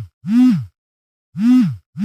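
Mobile phone vibration motor buzzing in repeated pulses of about half a second, each dropping in pitch as it stops. There is a short pause about halfway through, then the buzzes resume.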